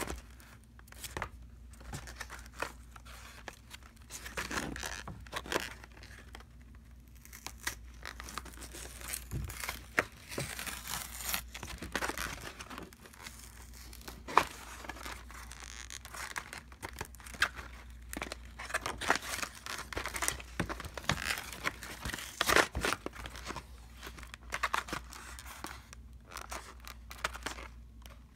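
Cardboard and plastic packaging of a set of metal shower curtain hooks being torn and crinkled open by hand, with irregular rips and crackles throughout.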